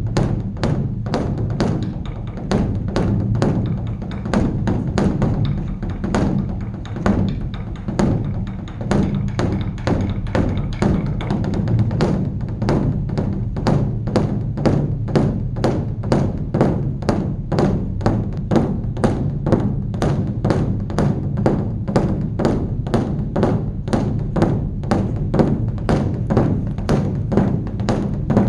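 Korean Buddhist temple dharma drum (beopgo) being beaten in a quick, steady stream of strokes, several a second, over a continuous low boom from the drumhead.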